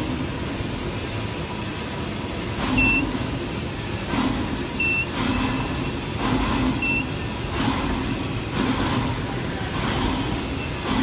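Machinery noise on a work site, swelling in a steady rhythm about every second and a half. A short high beep sounds three times, about two seconds apart, early on.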